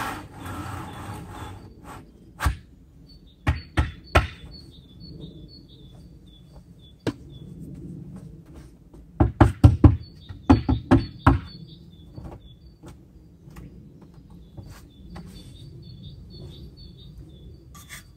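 Rubber mallet knocking a wall panel into place: a few single knocks, then a quick run of about ten blows a little past halfway. Birds chirp in the background.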